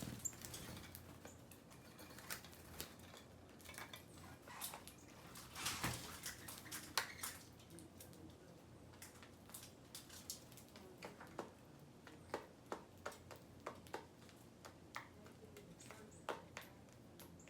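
Small birds pecking at seed: faint, irregular light taps and clicks, a little busier around six to seven seconds in.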